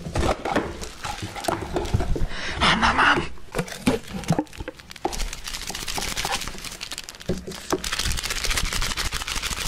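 Plastic wrap being peeled and torn off cup noodle containers and crinkled close to the microphone: a dense run of crackles and small clicks.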